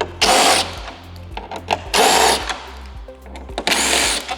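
Cordless power driver spinning out T25 Torx screws in three short whirring bursts, about half a second each, over background music.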